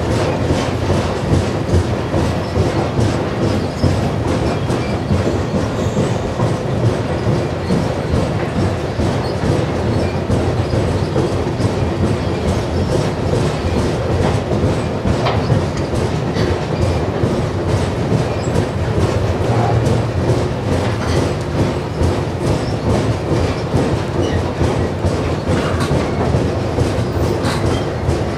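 Steady rumble of a moving passenger train's wheels on the rails, heard from aboard the train, with a dense run of small clicks and rattles throughout.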